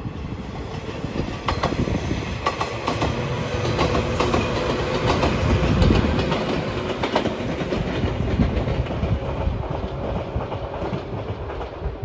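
JR 115 series electric train passing close by, its wheels clattering over the rail joints, loudest about halfway through.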